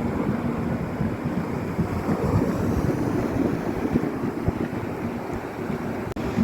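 Wind buffeting the microphone, with the rush of surf from the beach beneath it.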